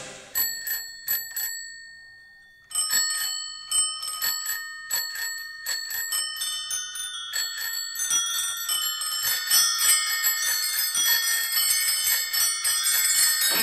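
Bicycle bells ringing in a music soundtrack: a few single rings, a short fading pause, then many bells ringing over one another, growing denser and fuller.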